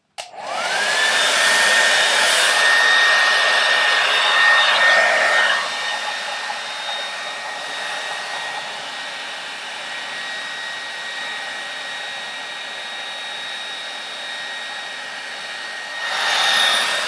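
Conair Infiniti D214SR hair dryer switched on, its motor whine rising to a steady pitch within the first second over the rush of blowing air. The air noise is loud for the first five seconds or so, then drops to a lower steady level and swells briefly again near the end.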